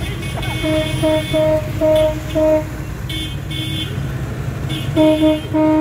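Car horns honking in short toots, about five in quick succession a second in, two more in the middle and three loud ones near the end, over the steady low running of engines as classic cars drive past.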